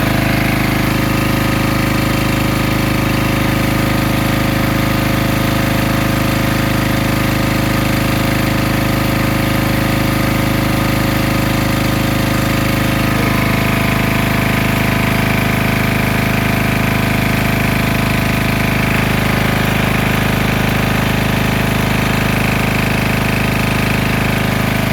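Portable generator's engine running steadily at a constant speed after months of sitting, its note shifting slightly about halfway through.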